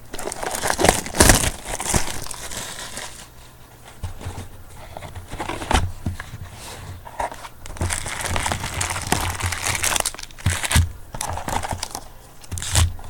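Plastic wrapping crinkling and tearing in irregular rustles and crackles as a box of trading card packs is unwrapped and opened.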